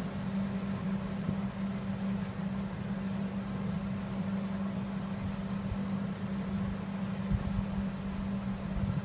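Steady low mechanical hum of a running appliance such as a fan, with a few faint light clicks from metal knitting needles being worked.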